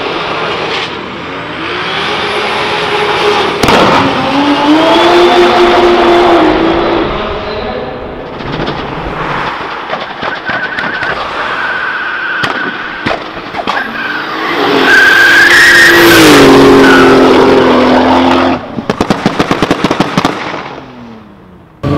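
Turbocharged VW VR6 engines revving hard in a series of short clips, with tyre squeal from a burnout at the start. Near the end comes a rapid string of sharp exhaust pops and bangs.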